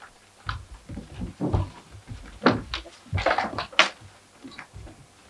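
Irregular knocks, thuds and scuffs of stage furniture and props being picked up, set down and shifted, busiest and loudest a little past the middle.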